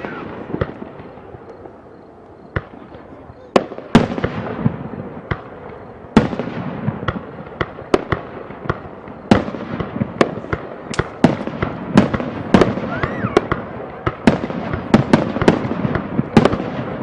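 Aerial fireworks shells bursting: single bangs a second or more apart at first, then coming faster, several close together, from about halfway through, with crackling between the bangs.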